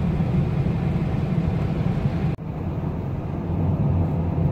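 Steady road and engine rumble heard from inside a moving car's cabin. About halfway through it drops out for an instant and comes back with less hiss.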